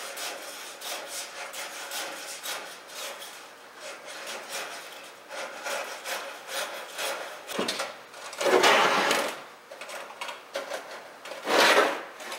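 Fine 200-micron stainless steel mesh crinkling and scraping against a wire basket as it is folded and pressed into place, with many small clicks and two louder scraping rushes, one a little past the middle and one near the end.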